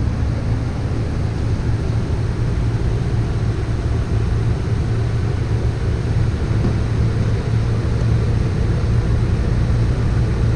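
Steady vehicle rumble: an even, low engine hum with broad running noise over it.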